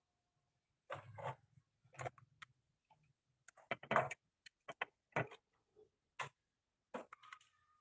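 Faint, irregular clicks and taps from soldering a lead onto a replacement microswitch for a refrigerator ice-maker unit with a soldering gun. A brief low hum comes in about a second in.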